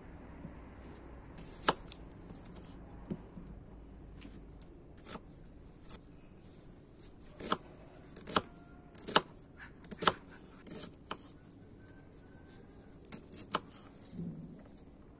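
Kitchen knife chopping a red onion on a wooden cutting board: single sharp knocks of the blade on the board at irregular intervals, closer together in the middle and a few more near the end.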